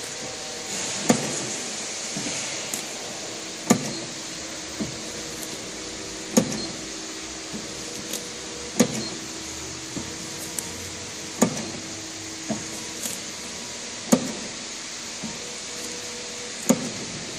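SAVEMA feeder-conveyor belt with an SVM 53I thermal transfer printer cycling: a sharp clack about every two and a half seconds as each bag is fed and printed. Lighter clicks fall between the clacks, and a low motor hum comes and goes.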